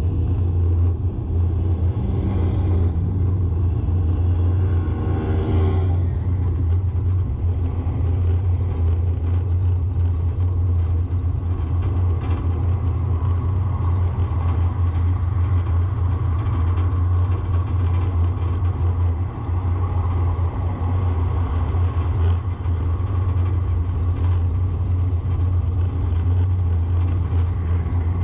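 A car driving along a paved street: a steady low rumble of engine and tyre noise. From about two to six seconds in, an engine's pitch climbs.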